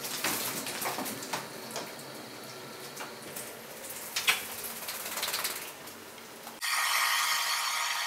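Scattered light knocks and clicks. Then, about six and a half seconds in, a handheld hair dryer switches on abruptly and runs steadily.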